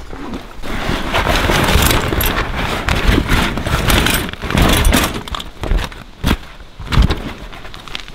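Handling noise: steel body-grip traps and wire clinking and rattling in a plastic crate, then a canvas pack rustling as it is opened, with three sharp knocks in the second half.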